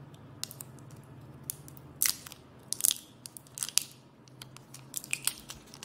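Thin plastic shrink wrap crinkling and crackling in short sharp snaps as it is peeled and pulled off a roll of washi tape, the loudest crackles about two to four seconds in.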